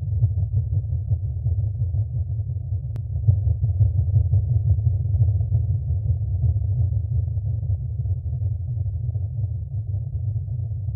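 A deep, steady rumble with nothing high in it, like a space-ambience sound effect.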